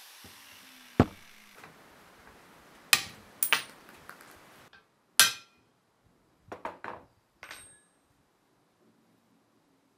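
An angle grinder winds down at the start, its pitch falling. Then come a series of sharp metal knocks and clinks, some of them ringing, as the steel brake backing plate, with its riveted snail brake adjuster ground off, and the tools are handled and set down on the vise. Three quick knocks come together near the middle and a last ringing clink follows shortly after.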